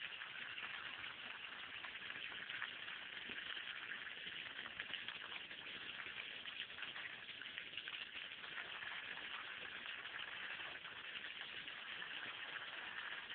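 A jet of water spraying up and falling back onto wet grass and a puddle, a steady hiss with a fine, constant patter of drops.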